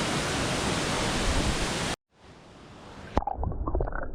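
Steady roar of a waterfall, which cuts off suddenly about two seconds in; after a moment of near silence, a dull, muffled scene begins with a series of small knocks and splashes.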